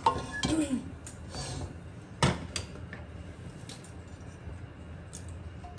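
Metal spoon clinking and knocking against metal cooking pots: a handful of separate clinks, the sharpest about two seconds in.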